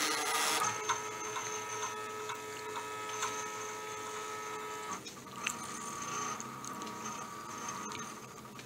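Stepper motors of a large home-built gantry 3D printer driving the print head through a dry run with no filament, a steady whine of several tones with light clicks. The pitch of the whine changes about five seconds in as the head's move changes.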